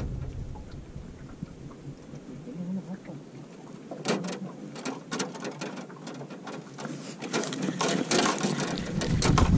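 Spinning fishing reel being cranked to retrieve line: a quick, uneven run of small mechanical clicks from the reel's gearing, starting about four seconds in.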